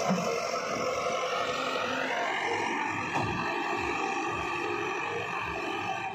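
JCB 3DX backhoe loader's diesel engine running under load as the machine works and backs across a field. The engine note rises about two seconds in and then holds steady.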